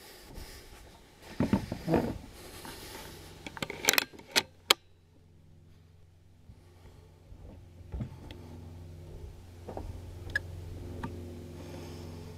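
Handling noise from a rifle carrying a scope-mounted camera: knocks and rubbing, a few sharp clicks about four seconds in, then a low steady hum.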